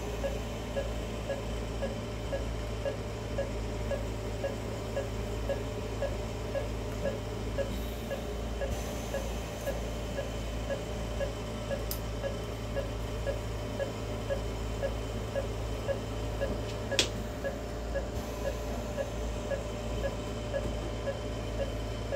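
Anaesthesia monitor beeping with each heartbeat of the dog under surgery: short, even pitched beeps a little over once a second, over a steady low hum of operating-room equipment. A single sharp click near the end.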